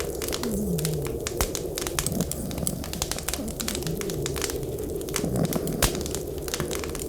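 Wood fire crackling with many sharp pops and snaps over a steady low rumble of blizzard wind. A few short, low, falling tones come through, the clearest about half a second in.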